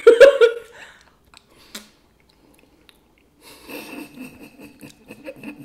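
Chewing of a soft food, cinnamon applesauce mixed with ketchup, eaten from spoons: scattered wet mouth clicks, nearly quiet in the middle and busier over the last two seconds. A short burst of voice comes right at the start.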